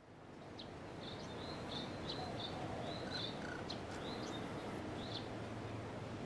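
Birds chirping in short, repeated calls over a steady outdoor ambience, which fades in at the start.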